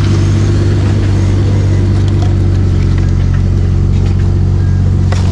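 Heavy equipment engine running steadily close by, a constant low hum at an even speed.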